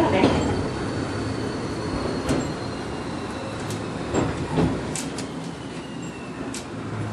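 Gakunan Railway electric railcar running, heard from inside the cab: a steady rumbling run with scattered sharp clicks and knocks from the wheels and track, and a faint whine slowly falling in pitch. A low hum sets in near the end.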